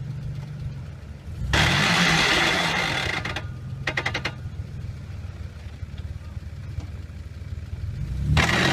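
Off-road 4x4's engine idling, then revved hard about a second and a half in and again near the end, each rev with a loud rushing noise and a short rattle of clicks after the first. The truck has lost drive to both front and rear axles, so the revs get it nowhere.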